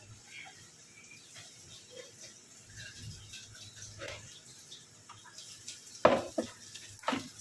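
Scattered light clicks, then two sharp knocks about a second apart near the end, the first the louder.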